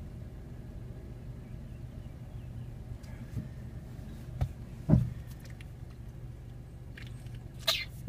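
Fiat Panda's engine and road noise heard from inside the cabin, a steady low hum, with a few short knocks, the loudest about five seconds in, and a brief rasp near the end.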